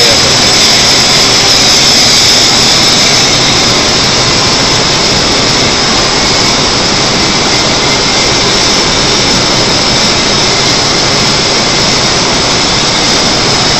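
Stainless steel sugar vacuum pan running: a loud, steady rushing hiss, strongest in the upper range, that holds even throughout.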